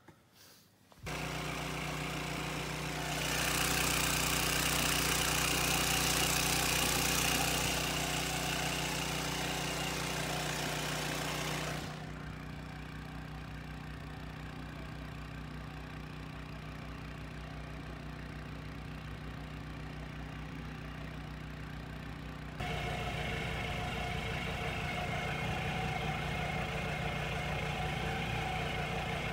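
Small boat motor running steadily at an even pitch while the boat is under way. It starts about a second in, and its level drops and then rises again later on.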